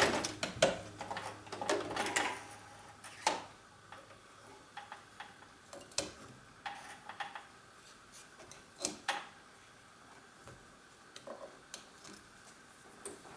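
A domestic sewing machine's stitching stops right at the start. After that come scattered light clicks, taps and fabric rustles as the garment is handled at the machine and the thread is drawn out.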